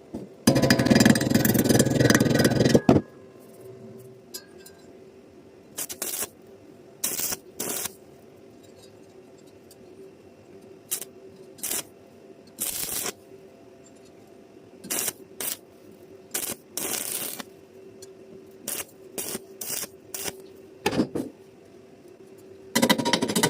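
Manual arc welding on hollow iron: the arc crackles in one burst of a couple of seconds, then in many short stabs of a fraction of a second each, as in tack or stitch welding. A steady hum runs underneath.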